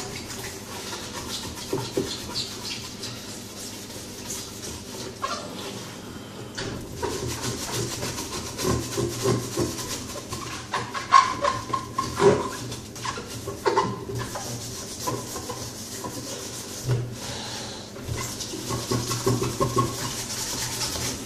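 A hand rubbing and scrubbing the inside walls of a Deltec MCE300 protein skimmer's clear acrylic body to clean off algae: irregular scuffing and rubbing with small clicks and a few sharper knocks of plastic.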